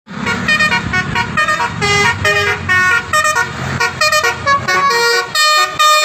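Multi-tone 'telolet' bus horn playing a fast tune of short notes, about three or four a second, each a steady pitch, over a low vehicle rumble.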